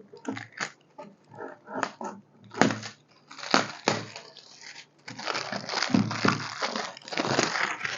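Packaging being handled and pulled off a cast-iron grill pan: irregular rustling and crinkling with short knocks, growing into a denser stretch of crinkling in the second half.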